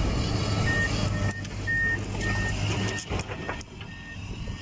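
Heavy earthmoving machinery's diesel engine running, with a reversing alarm beeping at one steady pitch about twice a second. The engine drone drops away about three seconds in while the beeping goes on.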